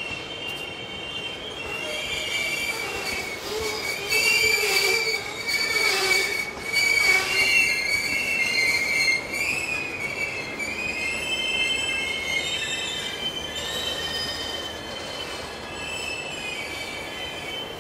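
Steel wheels of passenger coaches squealing against the rails as the train rolls slowly around a curve: several high, wavering tones that overlap and shift in pitch, loudest in the middle, over a low rumble.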